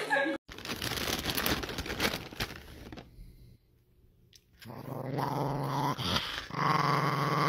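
Small dog growling, getting louder near the end, after a few seconds of rough noise and a short near-silent gap.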